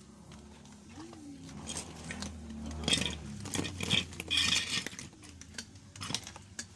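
Small hard objects being handled: a cluster of clinks, clicks and rattles about three to five seconds in, with a few lighter clicks before and after.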